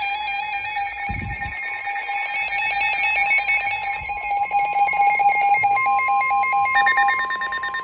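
Several NOAA weather radios sounding their alert alarms at once: overlapping electronic beeping and warbling tones. A steady tone near 1 kHz, typical of the weather radio warning alarm tone, comes in about halfway through and grows stronger, and another beeping pattern joins near the end. A brief low thump about a second in.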